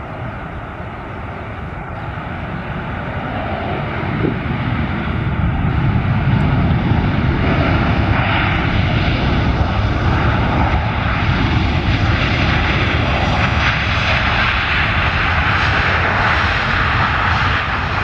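Boeing 737-800 jet's turbofan engines spooling up to takeoff thrust as it rolls along the runway: the engine noise builds over the first six seconds, then holds loud and steady, its higher whine strengthening near the end.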